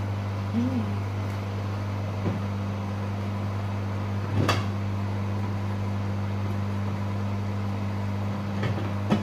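Microwave oven running with a steady low electrical hum, with a few sharp clicks, the loudest about halfway through.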